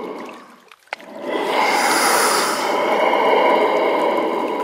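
Scuba diver breathing through a regulator underwater: a long breath trails off, there is a short pause about a second in, then another long breath runs on.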